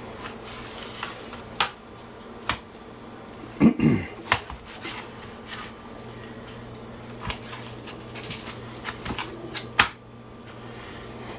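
Knife cutting raw pork butt into thick chunks on a cutting board: scattered knocks of the blade on the board and clatter of handling, loudest about four seconds in, over a steady low hum.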